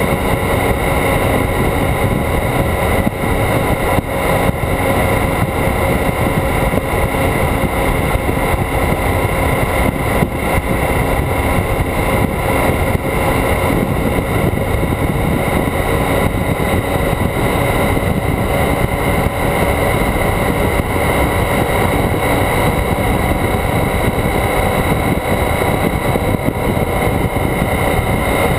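Motorcycle cruising steadily at about 55 to 60 mph: the engine running evenly under a constant rush of wind over the microphone, with no gear changes or other events.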